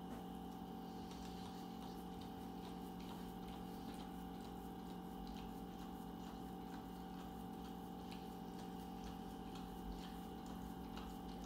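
Dog licking and lapping ice cream out of a paper carton: faint wet licks and small irregular clicks of tongue against the carton, over a steady low hum.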